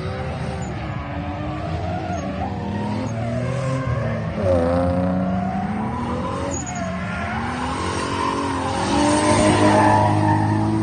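1JZ straight-six in a Nissan 240SX drifting, its revs rising and falling over and over while the rear tyres skid. It grows loudest near the end as the car slides close by.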